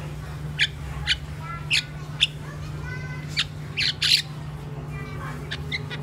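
Crested myna giving a string of short, sharp chirps and squawks, about ten of them unevenly spaced, the loudest near the middle. A steady low hum runs underneath.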